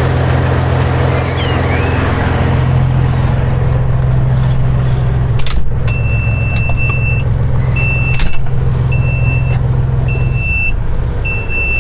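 Semi-truck diesel engine running steadily, heard from the cab, with a short knock about halfway. From about six seconds in, a high electronic beep repeats roughly once every one and a half seconds, like a reversing alarm.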